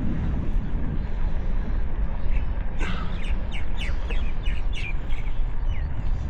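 Birds calling in a quick run of short, sharp chirps for a couple of seconds in the middle, over a steady low rumble of wind on the microphone.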